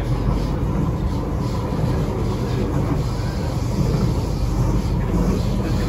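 C751B MRT train running at speed, heard from inside the car by the doors: a steady low rumble of the running train, with a faint steady whine above it.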